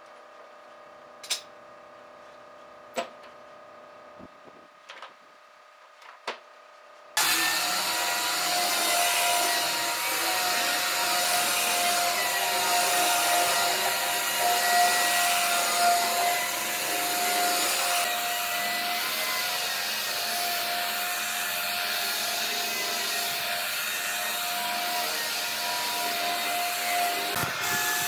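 A few sharp clicks, then from about seven seconds in a handheld electric belt sander runs steadily over a pine tabletop: the rasp of the belt on the wood under a steady motor whine.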